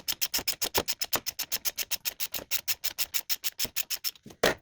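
Ratchet wrench clicking rapidly and evenly, about eight clicks a second, as a bolt is run on or off. The clicking stops near the end, followed by one louder metallic knock.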